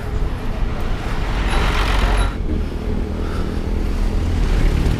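Road traffic close by: the engines of a coach and a small pickup truck passing, over a steady low rumble, with a brief rush of noise about two seconds in.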